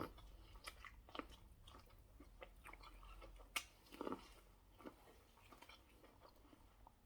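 Faint chewing and mouth sounds of a person eating, with scattered soft smacks and clicks; the sharpest click comes about three and a half seconds in.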